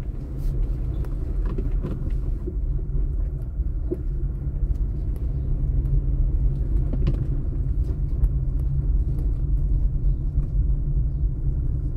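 Car driving slowly over an interlocking concrete paver street, heard from inside the cabin: a steady low rumble of engine and tyres, with a few light knocks.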